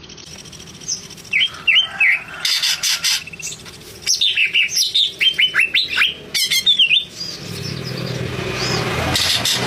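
Cucak ijo (green leafbird) singing: loud whistled notes with quick pitch sweeps, a few at first and then a fast, busy run of them. In the last couple of seconds a low rumble builds and grows louder beneath the song.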